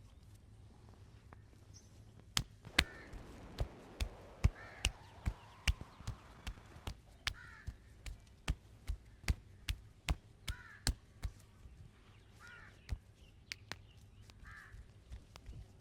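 Sharp, fast hand strikes of a vigorous head and back massage, irregular at about two a second, starting a couple of seconds in. Crows caw repeatedly in the background.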